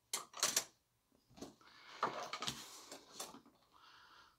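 Tools clinking and scraping inside a Husky tool bag as a long spiral auger drill bit is pulled out. A few sharp clinks come in the first half second, then a longer rattling, rustling scrape.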